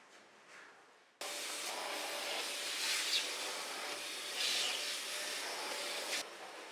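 Scrubbing on a dirty wooden window sill: a gloved hand rubbing a cloth over the wood, a steady rasping rub with a couple of louder strokes. It starts suddenly about a second in and cuts off shortly before the end.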